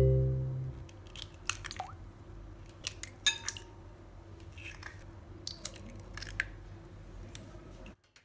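Three eggs cracked in turn on the rim of a glass mixing bowl: three bursts of sharp shell taps and crackles, each followed by the soft slip of the egg into the bowl. A musical chord fades out in the first second.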